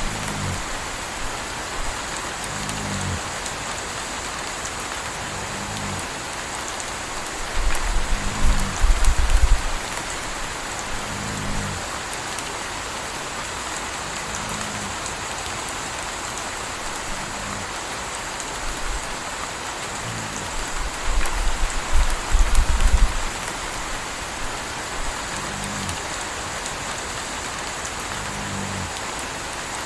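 Steady rain, with a puppy's soft snores coming low and even about every three seconds. Twice, about a third of the way in and again about three quarters through, a louder deep rumble rises for a couple of seconds.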